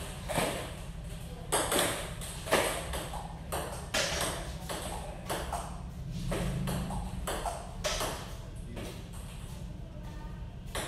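Table tennis rally: the plastic ball clicking off the paddles and bouncing on the table, about two sharp clicks a second in an uneven rhythm. A steady low hum runs underneath.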